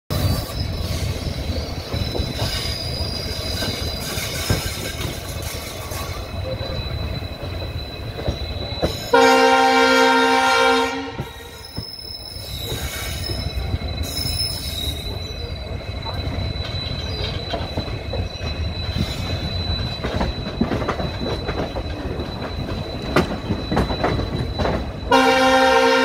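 Indian Railways passenger train running round curves and over points, its wheels crackling and squealing against the rails under a steady high squeal and running rumble. The train's horn blows loudly for about two seconds about nine seconds in, and again from about a second before the end.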